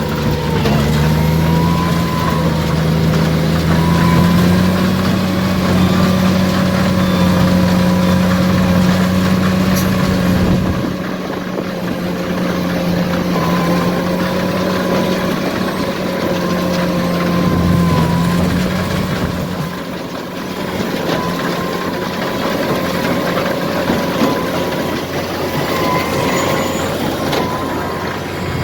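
JCB 2155 tractor running under load, driving a Case 8585 large square baler through grass hay: a loud steady engine drone with higher steady whines from the machinery. The deep part of the engine sound eases off about ten seconds in and again around twenty seconds.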